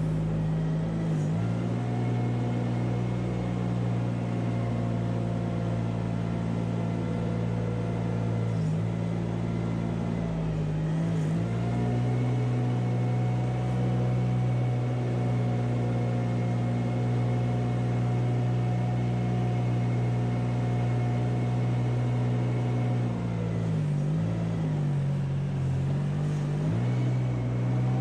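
Engine of a manure-clearing farm machine running at a steady speed. Its pitch dips briefly now and then.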